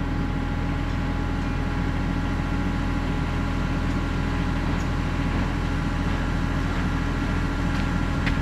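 Kubota KX91-3 mini excavator's diesel engine idling steadily, with a faint click near the end.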